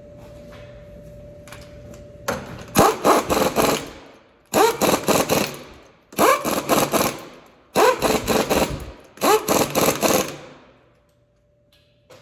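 Impact wrench hammering in five bursts about a second and a half apart, each a rapid rattle of blows lasting just over a second.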